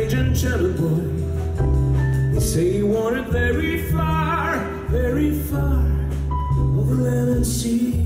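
Live jazz ballad: a male singer sings long, gliding lines over sustained notes on an upright double bass.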